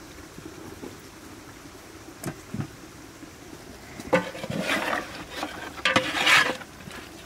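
Metal ladle stirring and scraping through a large pot of hot broth, liquid splashing, loudest from about four seconds in. Two dull knocks come about two seconds in.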